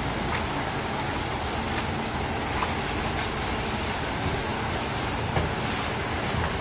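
A steady rushing noise, with light water sloshing and a few soft knocks as a wooden stick stirs towels down into a plastic tub of dye water.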